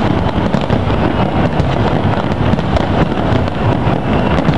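Aerial fireworks display, many shells bursting in quick succession so that their reports merge into a continuous low rumble, with crackling on top.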